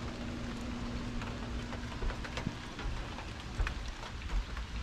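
Light rain just beginning to fall: a soft steady hiss with scattered drops ticking, over a low rumble that swells a few times.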